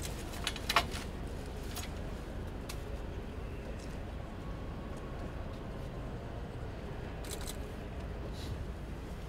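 Low steady background rumble with a few scattered sharp clicks, the loudest about a second in.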